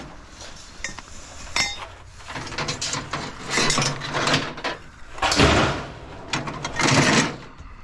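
Scrap metal clattering and scraping as it is handled, in a run of rattling bursts, the loudest about five and seven seconds in.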